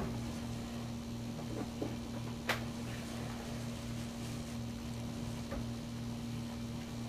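A steady low mechanical hum with a faint pulsing beat, and a single sharp click about two and a half seconds in.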